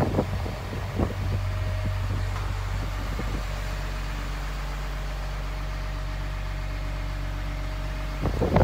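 Diesel truck engine idling steadily, with a faint steady whine over it. A few light knocks come in the first second or so, and near the end a rush of wind noise covers the hum.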